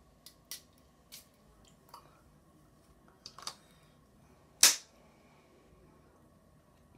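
A small cologne spray bottle being sprayed and handled: about seven short, sharp hissing spurts and clicks, the loudest about two-thirds of the way through.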